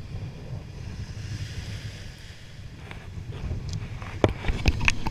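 Wind buffeting the microphone over small waves washing in on a sandy beach, followed by a few sharp knocks near the end.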